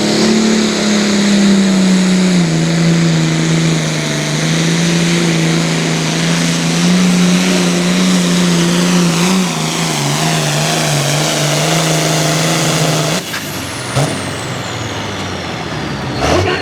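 International 66 Series farm tractor's turbocharged diesel running hard at steady high revs while pulling the sled. About thirteen seconds in, the engine drops off sharply and the turbo winds down in a long falling whine.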